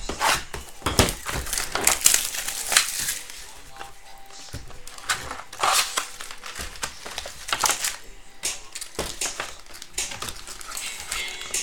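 Foil-wrapped 2014 Classics trading-card packs crinkling and rustling as they are handled and sorted by hand into small cardboard boxes, with scattered sharp crackles and light knocks.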